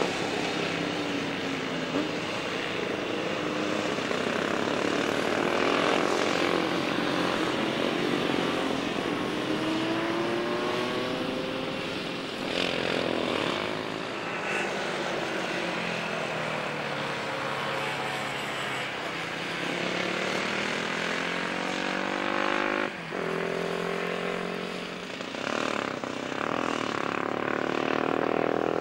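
Classic racing motorcycles going past at speed, one after another. Each engine note sweeps in pitch as a bike goes by.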